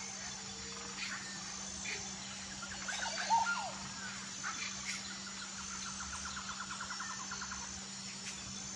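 Birds chirping, loudest about three seconds in, and a rapid trill a little past the middle, over a steady low hum. A few faint clicks come from a spoon scraping seeds out of boiled bitter gourd pieces.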